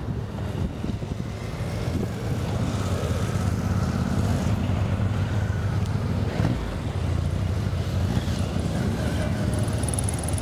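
Alenia C-27J Spartan's twin turboprop engines and propellers running at display power as it flies a steep banked pass. A steady propeller drone with a fainter whine above it grows louder over the first two seconds, then holds.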